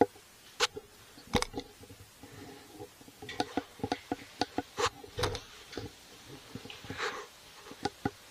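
Irregular plastic clicks and taps close to the microphone as a Ryze Tello mini drone is handled and its power button pressed, with a quicker run of clicks about halfway through; the drone does not start.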